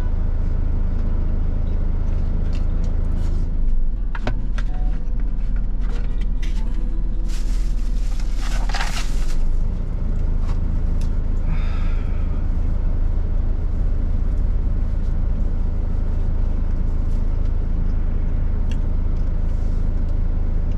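Truck engine idling steadily in the cab, with scattered light clicks and rustles from a plastic bento container and chopsticks being handled. A hiss lasting about two seconds comes midway.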